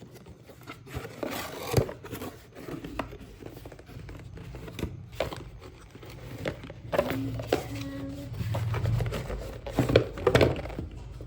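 Packaging being handled and opened: crinkling and rustling with irregular clicks and tearing.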